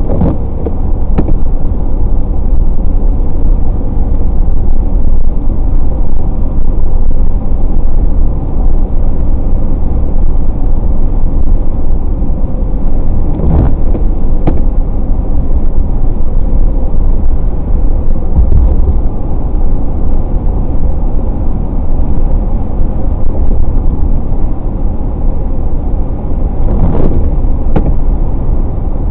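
Steady road noise of a car driving on a rain-wet highway, engine and tyre hum. Brief swishes with sharp clicks come three times, about a dozen seconds apart.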